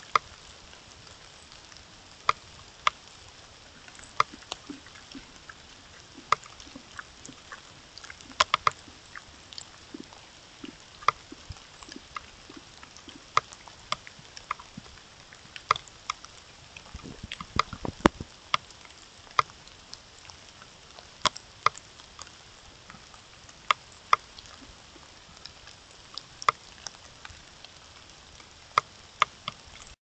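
A steady hiss with sharp, irregular ticks and taps, roughly one a second, some in quick pairs. There is a louder low rustle or brush about 17 seconds in, as the elk moves close against the camera.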